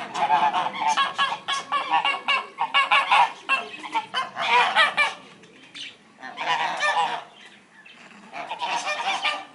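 Domestic grey geese honking: a fast run of honks for the first three and a half seconds or so, then three shorter bursts of honking with pauses between.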